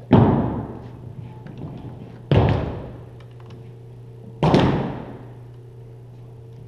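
Three loud, sudden strikes evenly spaced about two seconds apart, each ringing out and dying away in the gymnasium's echo.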